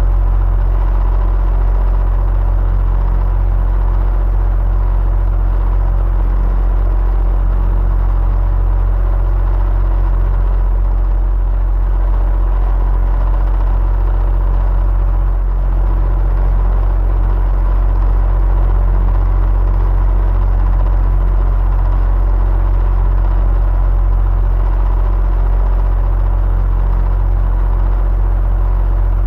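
Electric fan running steadily: a deep, even rumble with a faint motor hum and whir on top.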